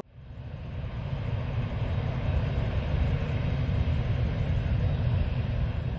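Gas flare burning at the top of a flare stack: a steady low rumble that fades in over the first second and then holds even.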